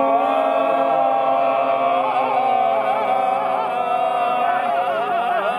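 A group of voices singing one long held chord together, one voice wavering up and down above the others, lasting about five and a half seconds.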